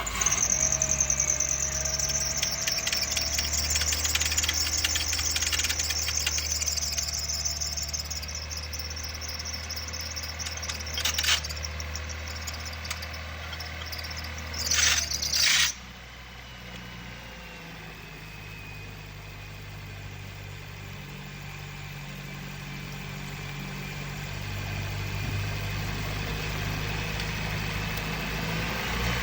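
Car engine idling with its drive belt giving a loud, high-pitched chirping squeal. Two short hissing bursts come around 11 and 15 seconds in, and just after the second the squeal cuts off suddenly, leaving the engine idling more quietly.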